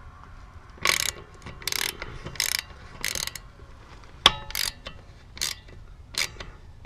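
Small hand ratchet clicking in short bursts as it is worked back and forth on a car's wheel nut, about one stroke a second.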